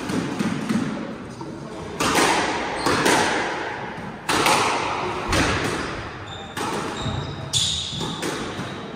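A squash rally: the ball is struck by rackets and hits the court walls, giving about eight sharp, echoing hits spaced roughly half a second to a second apart, starting about two seconds in.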